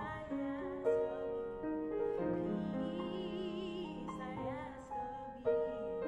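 Grand piano playing slow chords, with a single singer's voice holding a note with vibrato over it from about two and a half to four and a half seconds in.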